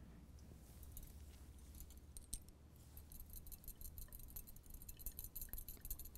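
Faint light metallic clinking of a wire test-tube holder on a glass test tube as it is handled: one sharp click about two seconds in, then a quick run of small jangling clicks.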